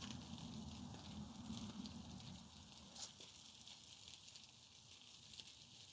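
Faint wood campfire crackling and hissing, with one sharper pop about three seconds in.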